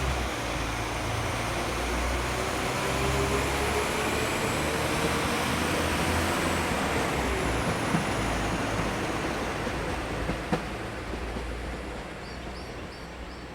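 Train running through a station: a steady low rumble with wheel-on-rail noise, a faint whine that drifts in pitch and a couple of sharp clicks, dying away near the end.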